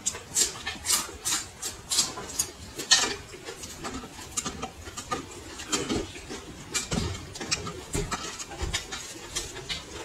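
Close-up chewing and crunching of raw red chilli peppers: an irregular run of short, crisp bites and wet mouth sounds, busiest in the first few seconds.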